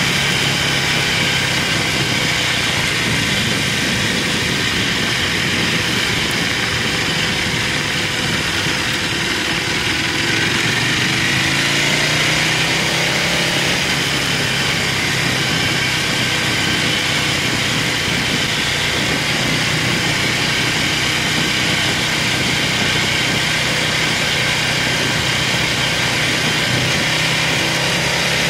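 Buell motorcycle engine running on the move, under a steady rush of wind and road noise. About eleven seconds in, the engine note climbs as the bike accelerates.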